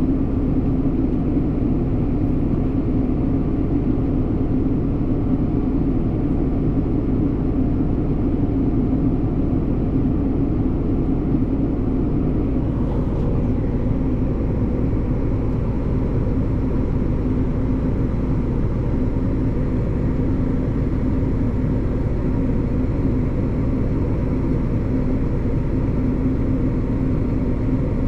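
Tractor engine running steadily, with the PTO turning the grain cart's unloading auger, heard from inside the cab as a constant low drone with a steady hum.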